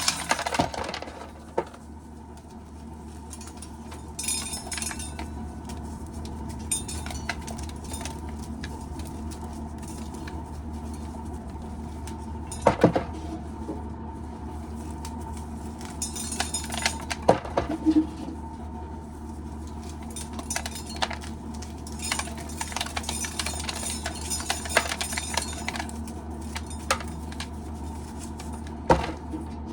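Scattered clinks and rattles of dry corn kernels being handled during shelling, with a few sharper knocks, over a steady low hum.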